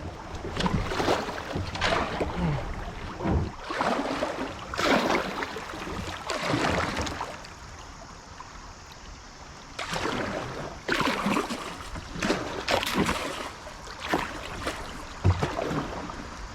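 Kayak paddle strokes splashing one after another through a creek riffle, with a quieter pause of about two seconds partway through.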